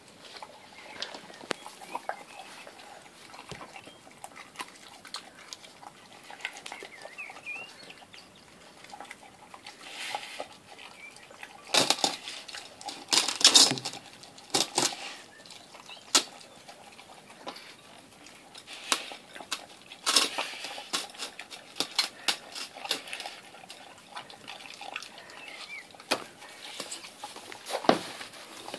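A dog eating a wet raw-meat mix from a glass dish: irregular smacking, chewing and licking, with the glass dish clinking and sliding on the floor. The loudest bursts come about twelve to fifteen seconds in and again around twenty seconds.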